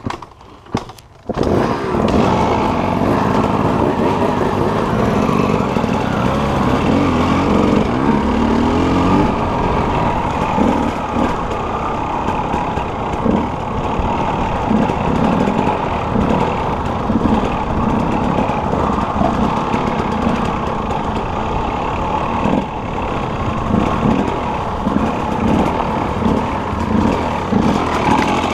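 Enduro dirt-bike engine coming in loud about a second in, then running and revving under throttle as the bike is ridden up a dirt trail, its pitch rising and falling with the throttle.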